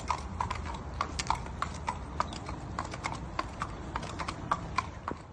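Hoofbeats of an Irish Draught x Thoroughbred mare on wet concrete: a regular clip-clop of about three sharp strikes a second.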